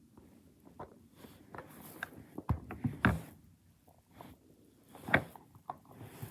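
Irregular clicks, taps and knocks of a plastic toy helicopter being handled, loudest about two and a half, three and five seconds in.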